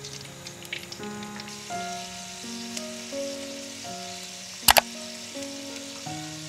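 Thread-bound stuffed bitter gourds sizzling gently in oil in a clay pot, under background music with held notes. A sharp double click about two-thirds through is the loudest sound.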